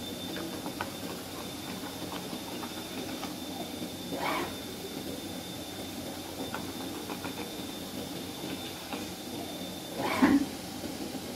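CNC honeycomb-cardboard cutting machine running as its tool head travels and grooves the board: a steady mechanical whir with a thin high whine that stops about nine seconds in, and light ticking. Two short louder sounds stand out, about four and ten seconds in, the second the loudest, with a thump.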